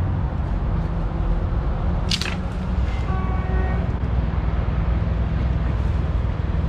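Steady low rumble of passing road traffic. About two seconds in there is a brief crack of dry sticks as a man sits down on a makeshift bench of lashed branches.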